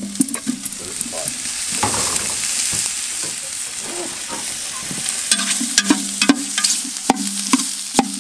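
Cubes of bacon frying in a large aluminium stockpot, starting to render their fat: a steady sizzle over the scrape and clack of a metal utensil stirring against the pot. A low steady hum grows stronger about five seconds in.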